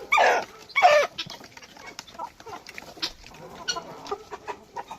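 Desi country chickens calling: two loud squawks that fall in pitch within the first second, then scattered quieter clucks.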